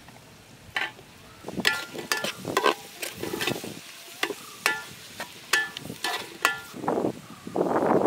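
Long steel ladle stirring green chillies and sliced onions in a large aluminium pot, clinking and scraping against the metal in irregular short strikes with a brief ring. Near the end a steady rush of wind on the microphone takes over.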